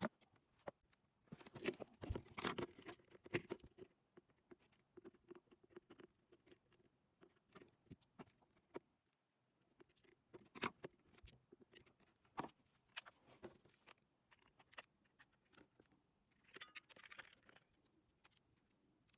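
Faint, irregular small clicks and taps of hand tools and small plastic parts being handled during work on a portable radio, with a brief scraping hiss near the end.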